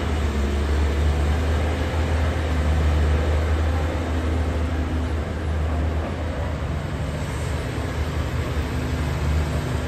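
Caterpillar hydraulic excavator's diesel engine running steadily under working load as it digs soil and swings its bucket, a deep, even drone.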